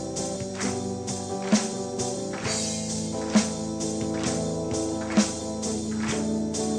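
Instrumental break of a live band song: sustained guitar chords under a steady tambourine-like rhythm, with a stronger beat accent about every second and three-quarters.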